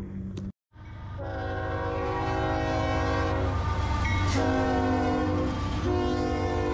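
Locomotive horn on a passing train, several notes sounding together in long blasts, starting about a second in, over the low rumble of the locomotive.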